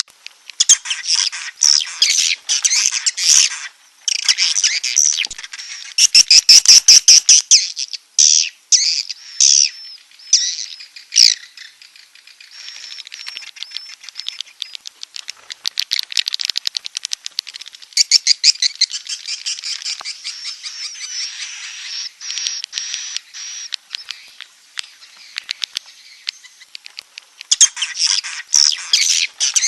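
Swiftlet calls played as a swiftlet-house lure track: rapid high-pitched twittering chirps and trills mixed with fast runs of clicks, loudest about six to seven seconds in.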